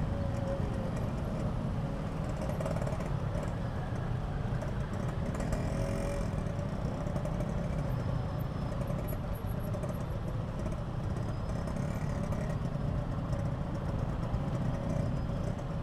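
Yamaha RX-King two-stroke motorcycle running while being ridden, with a steady low rumble of wind on the microphone under the engine.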